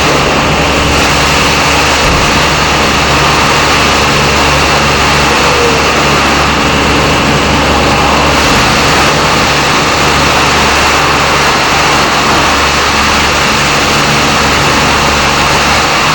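Car wash machinery running steadily: a dense, even hiss over a low motor hum.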